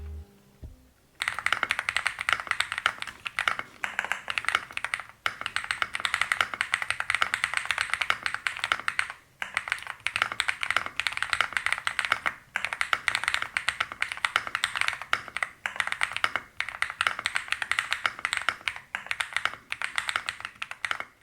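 Fast continuous typing on a mechanical keyboard with Akko Creamy Yellow U1 factory-lubed linear switches in an FR4 plate, giving a steady stream of deep keystroke clacks. It starts about a second in and breaks off briefly a few times.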